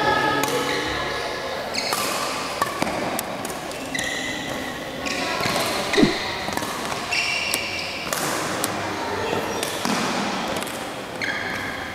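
Badminton rally: racket strings striking the shuttlecock in sharp smacks, with shoes squeaking on the court floor and a louder smack about halfway through, echoing in a large hall. Voices murmur in the background.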